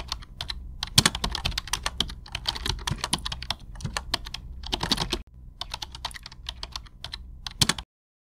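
Rapid computer keyboard typing, a string of irregular key clicks with a brief pause about five seconds in, stopping abruptly near the end.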